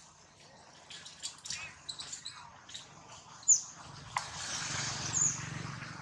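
Baby long-tailed macaque giving short, high squeaks starting about a second in, the loudest a sharp falling squeal about halfway. A stretch of rustling and scuffling fills the second half.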